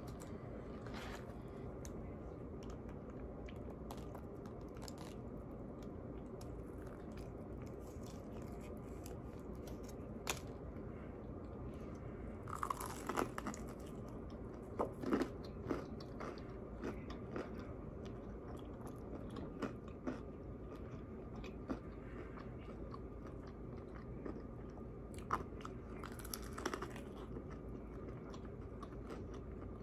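Biting into and chewing crispy fried chicken close to the microphone, the breading crunching in short clusters of bites. Before the eating starts, a few faint clicks and rustles of a hot sauce packet being opened.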